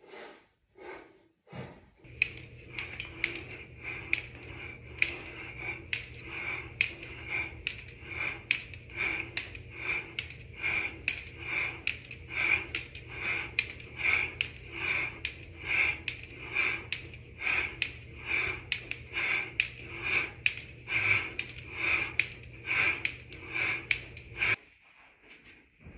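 Rapid, rhythmic heavy breathing of a man exercising, about two breaths a second, over a steady low hum. It starts abruptly about two seconds in and stops abruptly near the end.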